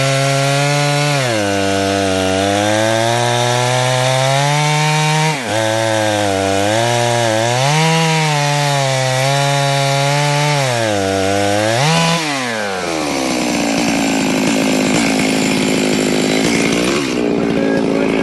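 Stihl chainsaw in a chainsaw mill ripping a log lengthwise into boards, running flat out, its pitch dipping and recovering several times as the chain bogs in the cut. About two-thirds of the way in the engine note drops and settles to a lower, steady pitch.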